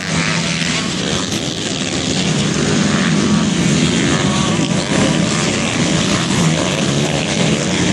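Several motocross bikes racing at once, their engines buzzing at high revs, with pitches rising and falling as the riders throttle on and off.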